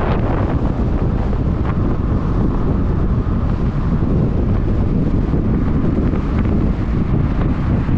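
Wind buffeting the microphone over the steady rumble of a car driving along a paved road.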